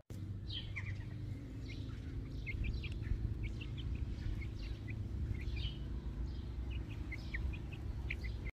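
Young chicks peeping: many short, high chirps scattered throughout, over a steady low rumble.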